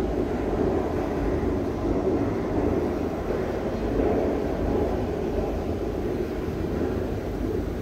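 Glass elevator cab descending its shaft: a steady mechanical hum and rumble of the lift running.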